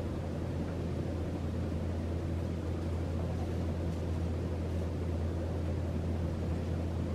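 Harbor Breeze Mazon DC-motor ceiling fan running steadily: an even whoosh of air from the blades, a blade 'helicopter noise', over a low hum.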